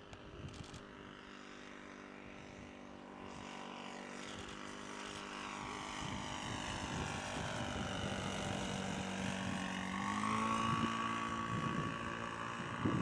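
A 1/4-scale Curtiss Robin B-1 model's MBM 32 cc four-stroke gasoline engine and propeller drone steadily in flight. The sound grows louder as the plane flies closer, and the pitch rises slightly about ten seconds in.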